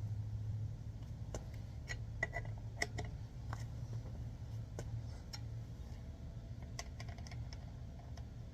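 Scattered light metallic clicks and clinks of a lug wrench being fitted onto and turned on a wheel's lug bolts, over a steady low hum.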